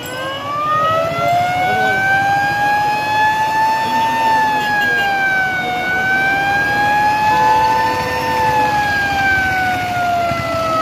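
Police siren wailing in one slow cycle. It winds up from a low pitch, rises and dips over several seconds, then sinks slowly near the end. It is sounded as a warning for the market shops to close.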